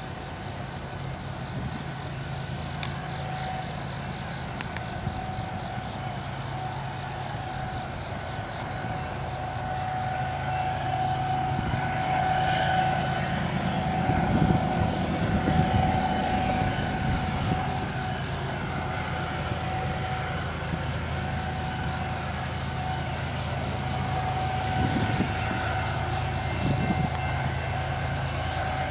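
Low, steady rumble of a freight train's diesel locomotives approaching from a distance, with a constant high-pitched hum over it. The rumble swells for a few seconds about halfway through.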